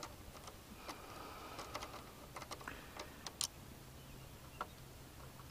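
Faint, scattered clicks of a screwdriver working a Phillips screw loose from a plastic fuse panel, at irregular spacing.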